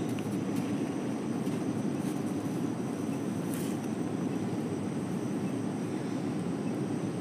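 Steady low rush of a river flowing over rocks.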